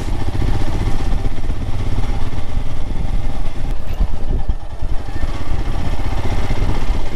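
Royal Enfield Himalayan motorcycle's single-cylinder engine running steadily under way, its firing pulses coming as a fast, even low thump.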